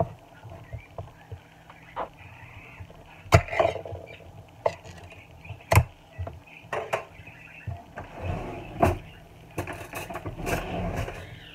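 A tin of tuna being opened by hand: sharp metallic clicks and snaps as the lid is worked loose and lifted off, with spells of scraping metal in between.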